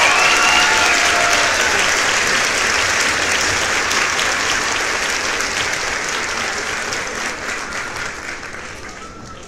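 Audience applauding, dying away gradually over the last few seconds.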